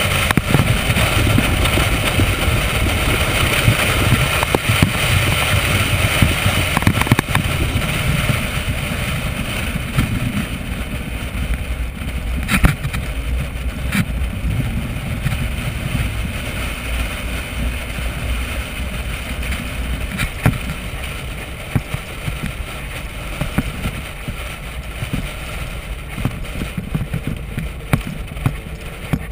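Corvette V8 running at track speed, mixed with wind rushing over the car-mounted camera's microphone. Louder for the first eight or nine seconds, then easing to a lower, steadier level, with a few brief knocks later on.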